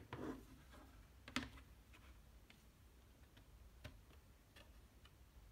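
Light plastic clicks and taps from hands handling a clear plastic CD jewel case and the disc inside. The loudest click comes about a second and a half in, with a few fainter ticks scattered after it.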